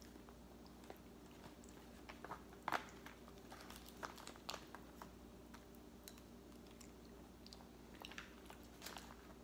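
Faint eating sounds: a fork clicking and scraping in a plastic tray, the plastic crinkling, and chewing of frozen durian, as scattered small clicks with the loudest about three seconds in. A low steady hum runs underneath.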